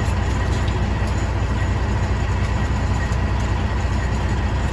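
A truck's engine idling steadily, an even low hum with no change in speed.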